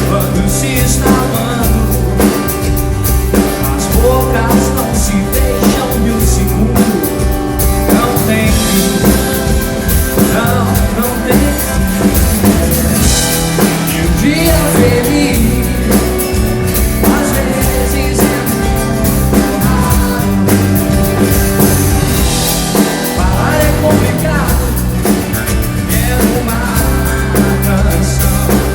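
A live pop-rock band playing: a singer's voice over drum kit, bass and electric guitar, loud and unbroken.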